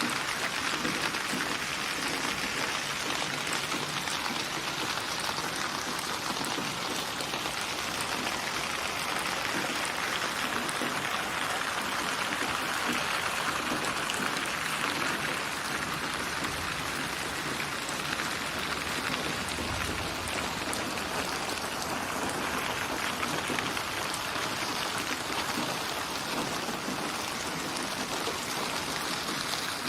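Steady rain falling and pattering on a surface, an even hiss with many small drop ticks.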